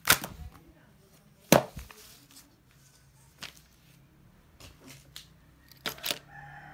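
Books set down and shifted on a wooden desk: two sharp thumps about a second and a half apart, a light tap later, and a quick double knock near the end, with faint paper handling in between.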